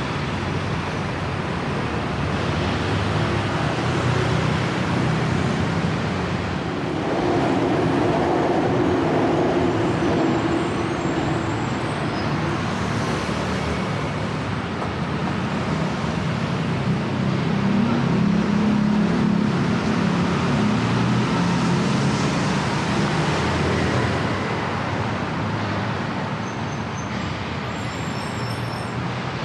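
Road traffic passing close by: a continuous wash of car and motorbike engines and tyre noise, swelling louder as heavier vehicles pass about a quarter of the way in and again around two-thirds of the way through.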